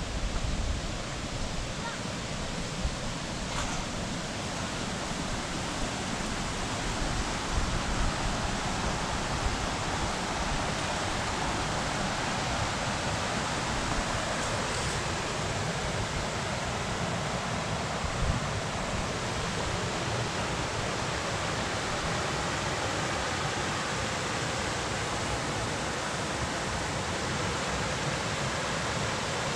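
Creek water rushing over a small rocky cascade: a steady, even rush of water.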